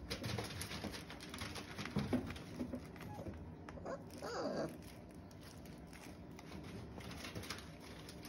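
Five-week-old puppies shuffling and scuffing on their bedding, with one puppy giving a short whimper that falls in pitch about four seconds in.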